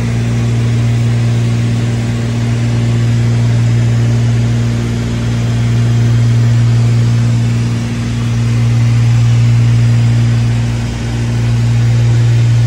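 Propeller-driven single-engine light aircraft in cruise, heard inside the cabin: a steady low engine-and-propeller drone with airflow hiss, slowly swelling and fading in loudness every few seconds.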